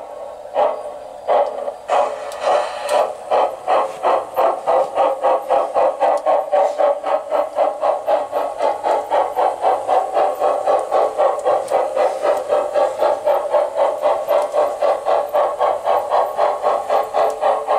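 Sound decoder in a G-scale model of a Saxon IK narrow-gauge steam tank locomotive playing steam-locomotive chuffing through the model's loudspeaker. The chuffs start slow and quicken over the first few seconds to a steady beat of about four a second as the model runs along the track.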